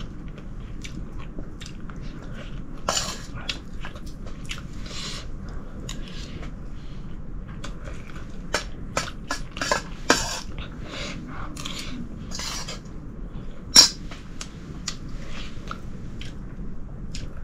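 Steel plate and tumbler clinking and scraping irregularly during a meal, with one sharper, louder clink late on.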